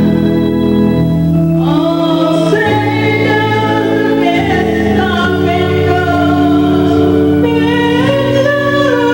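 A national anthem played as a recording: a choir singing long held notes over instrumental accompaniment.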